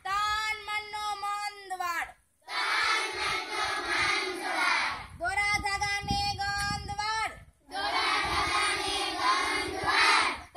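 Call-and-response chanting by schoolchildren, twice over: a single girl's voice calls out a line on held notes, then the whole group shouts the answer together.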